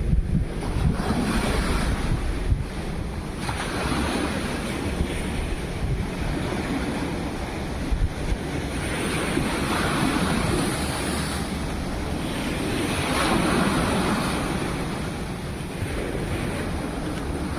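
Sea waves washing onto the shore in slow surges, with wind buffeting the microphone.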